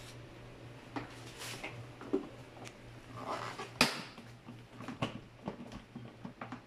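Plastic clicks and knocks from the base of an Iwata Z10 air cooler as its water tank is pulled and worked in its slot, the loudest knock a little past the middle, over a faint steady low hum.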